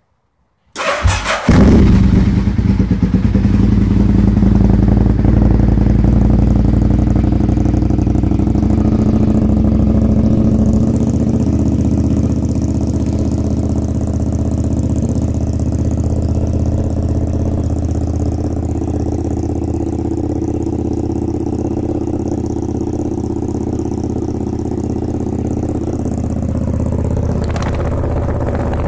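2003 Honda RC51's 999 cc V-twin, breathing through a Sato aftermarket exhaust, starting about a second in and then idling steadily. Its idle settles lower about ten seconds in.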